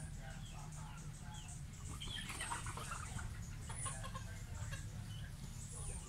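Free-range chickens clucking in short scattered calls, busiest about two seconds in, with a few short high chirps. A steady low hum sits beneath.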